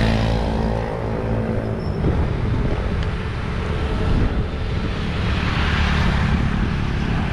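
Street traffic and wind noise picked up by a camera riding on a moving bicycle: a motor vehicle's steady engine hum fades out about a second in, leaving an even, low noise of wind and road traffic.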